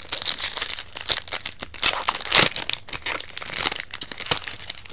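Foil booster-pack wrapper crinkling in the hand and being torn open, a dense run of crackles with the sharpest burst about halfway through.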